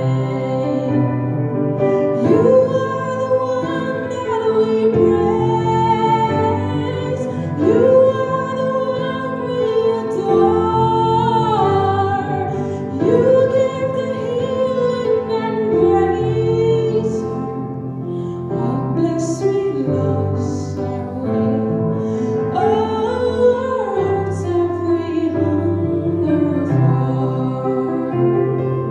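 A woman singing a slow solo song into a handheld microphone, with long held notes over instrumental accompaniment.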